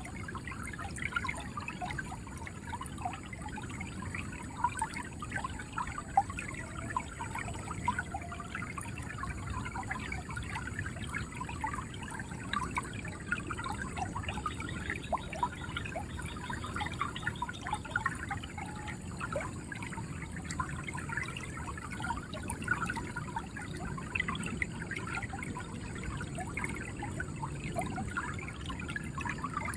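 River water flowing with a steady gurgle and trickle.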